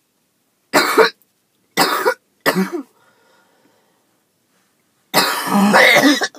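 A woman's hacking cough: three short coughs in the first three seconds, then a longer, harsher coughing bout near the end. The cough comes from asthma left untreated after skipped breathing treatments.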